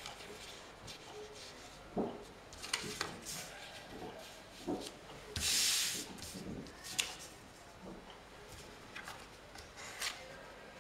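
Cut-out magazine pictures being slid, lifted and pressed down on a sheet of paper on a tabletop: scattered paper rustles and soft taps, with one longer, louder sliding rustle about halfway through.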